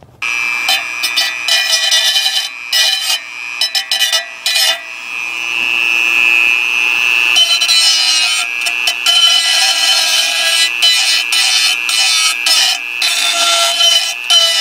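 Dremel rotary tool running at high speed, its bit grinding against the edge of a metal pull-start pulley to smooth it. A steady high whine with rasping bursts each time the bit bites; for a couple of seconds in the middle it spins free without grinding.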